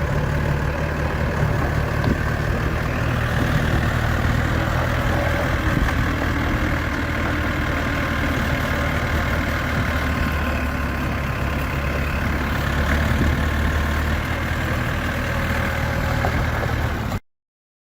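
Diesel engine of a 1995 JCB 210S backhoe running steadily at a constant speed, cutting off suddenly near the end.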